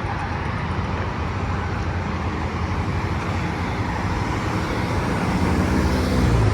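Road traffic noise, with a passing vehicle's engine growing louder toward the end.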